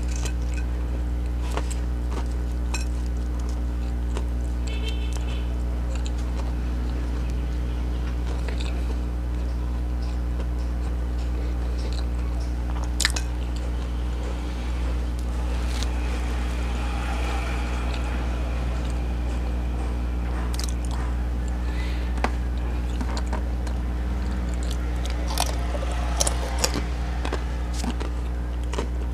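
Close-miked eating sounds: chewing with scattered sharp crunches of crispy chips and soft mouth sounds, over a steady low electrical hum that runs under everything.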